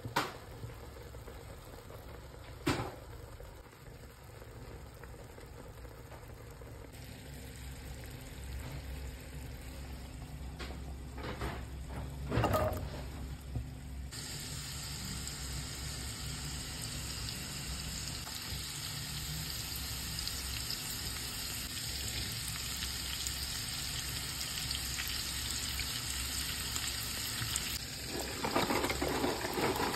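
Food sizzling in hot oil: a quieter cooking hiss at first, then from about halfway a louder, brighter sizzle of carrot pieces frying in a pan. A few knocks come in the first half, and near the end a wooden spatula scrapes and stirs in the pot.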